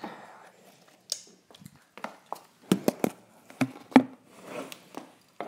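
Close camera handling noise: about seven irregular knocks and taps with soft rustling of clothing against the device.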